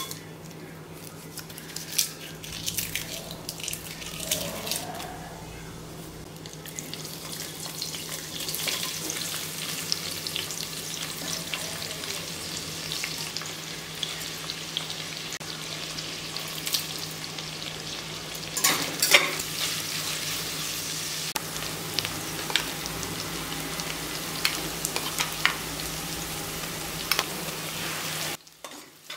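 Whole spices, then sliced onions and green chillies, sizzling and frying in hot oil in a stainless steel pressure cooker; the sizzle grows denser partway through. Sharp clicks and scrapes of a metal spatula and spoon against the pot come through it, most sharply about two-thirds of the way in.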